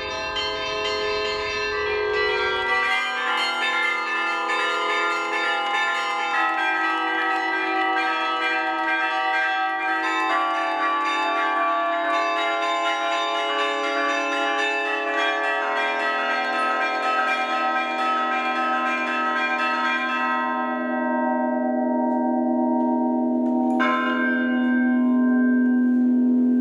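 Carillon of 16 tuned church bells, played from a wooden piano-like keyboard whose keys pull steel cables to the bells, ringing out a melody of changing notes. The playing stops about 20 seconds in and the bells are left ringing, with one more bell struck a few seconds before the end.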